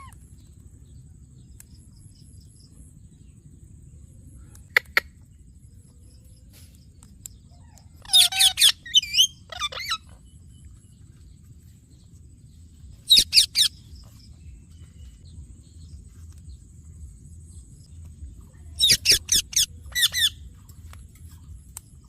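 Parrot giving sharp, high-pitched squawking calls in short rapid bunches. A brief double chirp is followed by three loud clusters of calls a few seconds apart, over a faint low hum.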